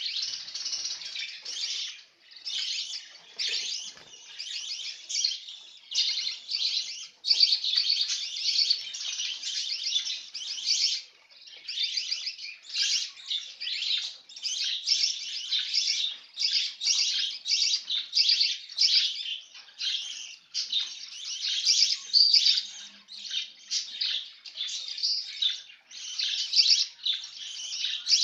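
Birdsong: continuous high-pitched chirping and trilling in quick runs of repeated notes, broken by brief pauses.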